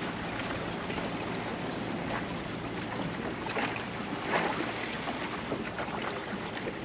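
Water splashing and lapping along the hull of a small clinker-plywood dinghy under way, with wind buffeting the microphone. A couple of louder splashes come a little past halfway.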